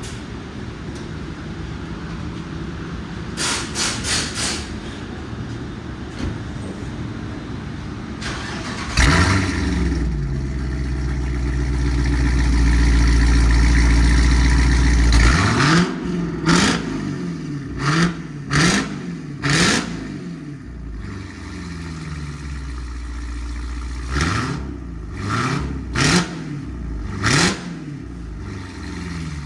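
Dodge Durango SRT Hellcat's supercharged 6.2-litre Hemi V8 with a Borla ATAK cat-back exhaust, after a few short clicks, starts about nine seconds in. It flares and settles into a steady high idle. It is then revved in a series of short throttle blips, about nine in all, each rising and falling quickly.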